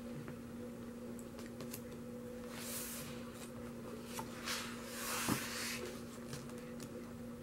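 A page of an album photobook turned by hand: paper rustling and swishing twice, about three seconds in and again about a second and a half later, with a sharp tap during the second swish and a few light clicks. A steady low hum runs underneath.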